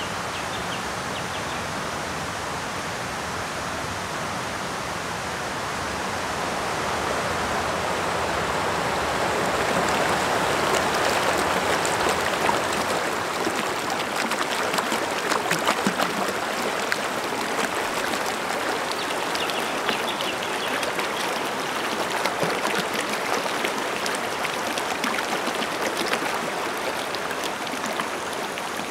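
Shallow rocky river rushing and splashing over boulders. The steady water noise grows louder over the first several seconds, with small splashes throughout.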